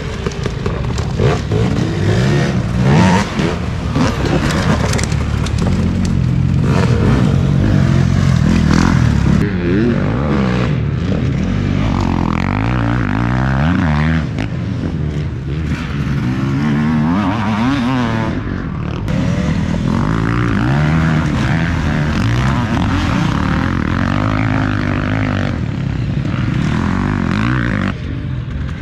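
Dirt bike engines revving and running hard at race pace, rising and falling in pitch again and again as the bikes accelerate and pass by.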